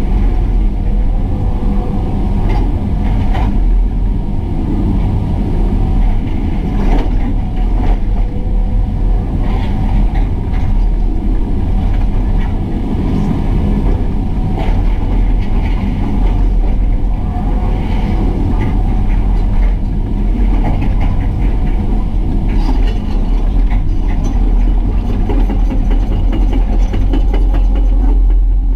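Excavator diesel engine running steadily, with a few short knocks scattered through.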